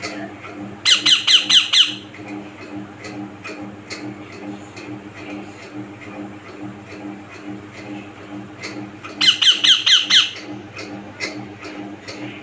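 Young green parakeet squawking in two quick runs of about six harsh calls each, every call sliding down in pitch: one run about a second in, the other near the end. These are the squawks of a hand-reared chick while it is fed soft food by hand. A faint steady hum and light ticking sit underneath.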